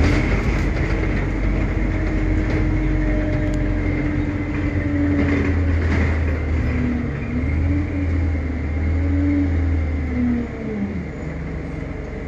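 Single-deck bus engine pulling hard at full throttle, heard from inside the passenger saloon under a low drone. A whine rises sharply at the start, holds, then dips and climbs again twice. Near the end it falls away and the sound gets quieter as the bus eases off.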